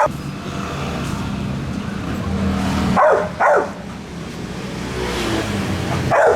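A dog barks twice in quick succession about three seconds in and once more near the end, over a steady low motor hum.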